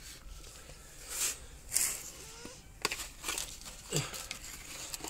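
A knife blade and metal tongs scraping and digging in gritty potting soil around a cactus in a plastic planter: two short rasps about one and two seconds in, then a few light clicks.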